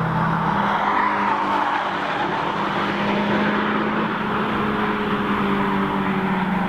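Cars' engines running as they drive through a corner of a race track, several engine notes overlapping and holding a steady pitch.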